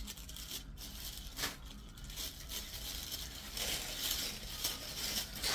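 Garments and their packaging being handled: rustling and crinkling, with a sharp crackle about a second and a half in and denser crinkling in the second half.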